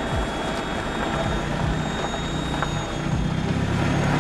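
Proton Satria's turbocharged Mivec engine and road noise heard from inside the cabin while driving: a steady drone.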